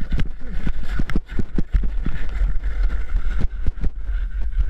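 Snowboard sliding and scraping down firm, tracked snow, with many sharp knocks as the board chatters over the bumpy surface, under a heavy rumble of wind on the microphone.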